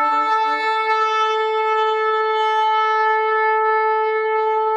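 One long horn blast held steady on a single note, sounded as the second angel's trumpet call.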